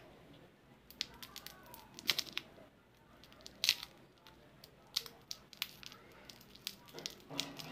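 Scissors cutting a lollipop's plastic wrapper: scattered sharp snips and clicks with crinkling of the wrapper in between.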